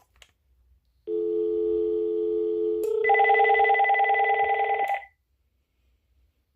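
A phone line's dial tone for about two seconds, then a telephone's electronic ringer warbling for about two seconds over the ringback tone before stopping: a call ringing through to the Uniden DCT648-3 cordless phone.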